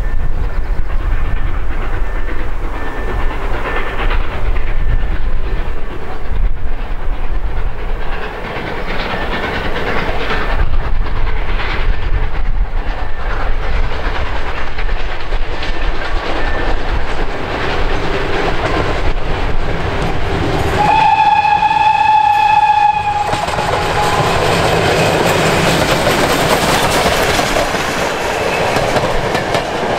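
Ol49 steam locomotive working a passenger train as it approaches, then a steam whistle blowing one steady note for about two seconds about two-thirds of the way in. The locomotive and coaches then roll past close by, the noise growing loud.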